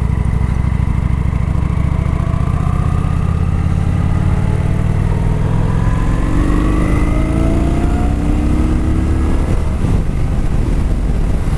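2013 Kawasaki Vulcan 900 Classic's V-twin engine running through its stock exhaust, heard from inside the rider's helmet. It holds steady for about six seconds, then pulls harder with its pitch rising, and eases off near ten seconds in.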